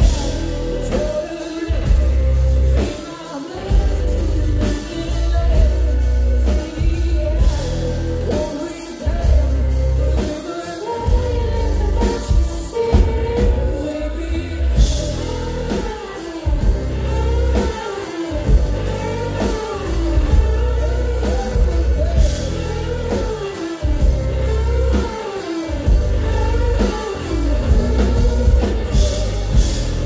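Live rock band of electric guitar, electric bass and drum kit playing loudly, with a heavy pulsing low end and a melodic line bending up and down in pitch over it.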